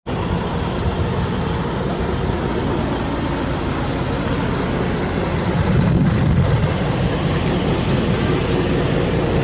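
Diesel engine of a fire engine idling steadily, a low even drone that swells slightly about six seconds in.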